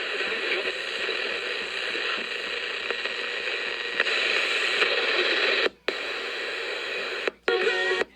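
Steady radio static hiss with no signal coming through. Near the end it cuts out sharply twice, and snatches of pitched tones break through just before the end.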